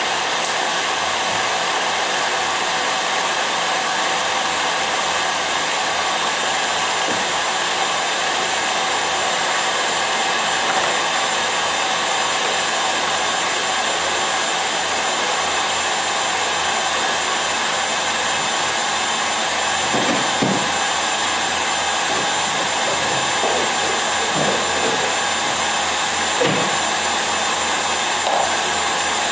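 KitchenAid Artisan stand mixer running steadily, its whisk beating powdered whipped-cream mix with ice water into chantilly: an even, unchanging motor whine. A few faint knocks come in the last third.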